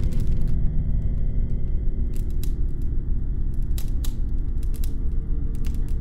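Low, steady droning rumble, with scattered sharp clicks from a smartphone being handled.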